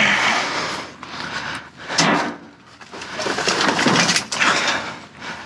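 Rummaging through trash in a dumpster: bags and loose items rustling and knocking in uneven bursts as someone reaches for an item.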